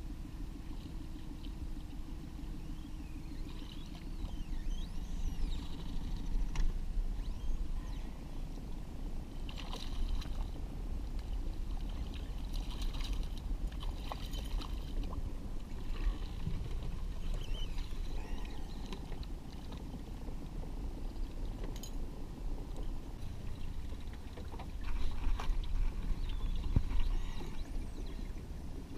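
Boat motor running steadily at trolling speed, with water splashing and gurgling. A hooked cutthroat trout splashes at the surface around the middle.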